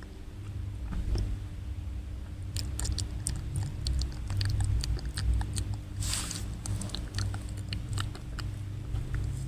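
Close-miked ASMR mouth sounds: a quick run of small wet clicks and smacks of the lips and tongue, with a short breathy hiss about six seconds in, over a steady low hum.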